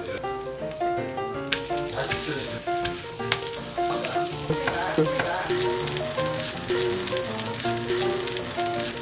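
Egg-battered fish fillets (saengseon-jeon) sizzling in oil in a frying pan. The sizzle grows louder about a second and a half in, with a light background music melody running under it.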